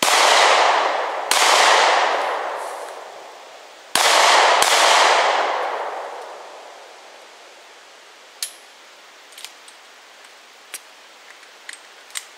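Four 9mm shots from a Glock 43 subcompact pistol, a pair about a second apart and then two more in quick succession, each echoing away for a couple of seconds. A few faint clicks follow near the end.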